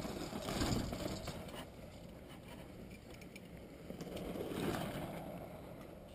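Mountain bike rolling down a dirt and gravel track: a rush of tyre and wind noise on the mic that swells twice, about half a second in and again around four and a half seconds.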